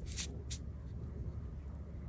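Two short, scratchy strokes of a Chinese brush on thin, fully sized cicada xuan paper in the first half-second, over a steady low hum.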